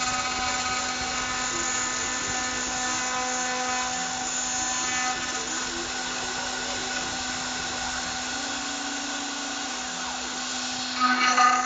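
CNC engraving machine's spindle running with a steady whine as the cutter engraves lettering into aluminium plate, growing louder and rougher near the end.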